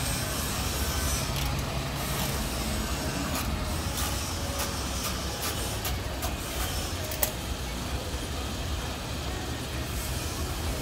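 Light clicks and taps of hands working a plastic mud flap and its fasteners into a car's wheel well, with one sharper click about seven seconds in, over a steady low rumble.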